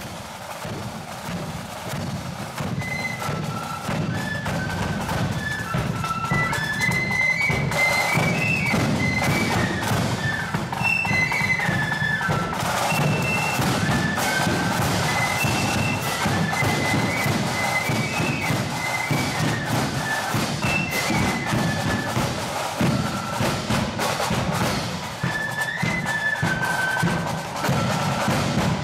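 Marching flute band playing a tune, the flutes carrying a high melody over side drums and bass drum beating the march. The drums are heard first and the flutes come in about two or three seconds in, the whole band growing louder over the first few seconds.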